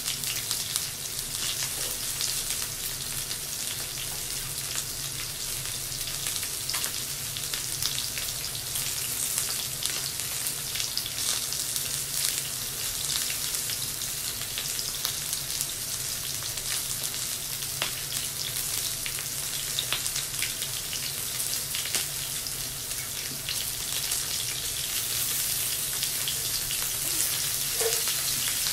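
Meat and vegetables sizzling on an electric tabletop yakiniku grill: a steady frying hiss with continual small crackles.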